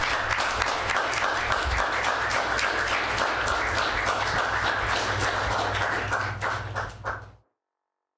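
Audience applauding, dense clapping over a steady low hum, thinning to a few last claps near the end before cutting off abruptly.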